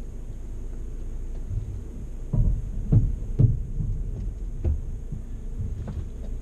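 Low, steady drone of a VW Amarok pickup's 2.0 BiTDI diesel heard through the vehicle, with four dull thumps between about two and five seconds in as the truck is jolted over rough offroad ground.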